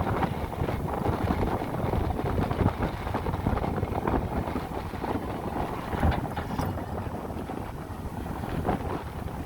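Heavy machinery engine running with a steady, rough rumble, mixed with wind buffeting the microphone.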